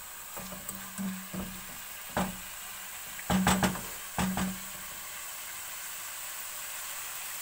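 Chicken and spice paste sizzling in an aluminium pot while a spoon stirs, knocking and scraping against the pot several times in the first half. After the stirring stops, a steady sizzle.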